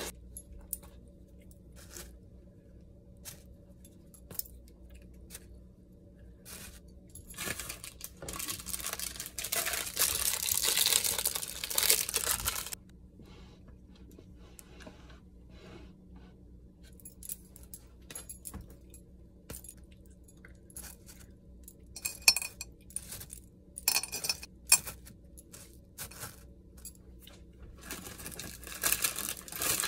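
A dry crinkling rustle lasts about five seconds, like packaging or crisp rice cereal being handled. Later come several sharp knocks and clinks as hard blocks of chocolate and vanilla almond bark are set down in a glazed ceramic crock.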